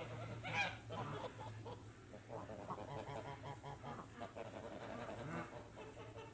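Geese honking among clucking chickens in a poultry house, with one loud honk about half a second in and a run of softer calls after it, over a steady low hum.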